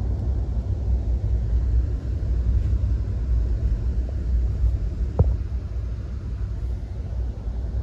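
Steady low rumble from inside a moving vehicle, with one sharp knock about five seconds in.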